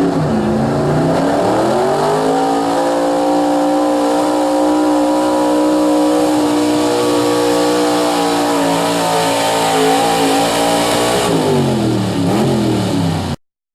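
Pro Stock pulling truck's engine running at full throttle under load. The revs climb over the first two seconds, hold high and steady, then fall away near the end as the pull ends, before the sound cuts off suddenly.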